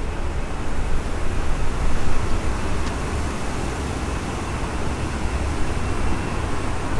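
Jet engines of a United Airlines Airbus A319 arriving to land, a steady low rumble with a faint high whine.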